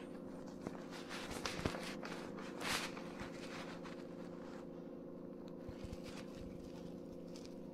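Footsteps and shoe scuffs on a tiled floor as a person steps onto a digital bathroom scale, with a few light clicks and one short scuff about two and a half seconds in, the loudest sound. Under it runs a steady low hum of several tones.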